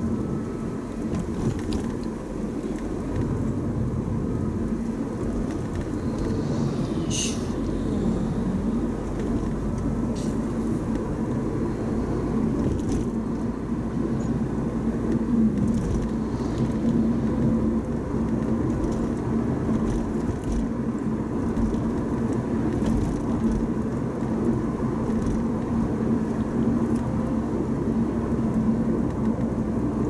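Steady in-cabin noise of a car being driven: a low hum of engine and tyres on the road, with a few faint clicks, the clearest about seven seconds in.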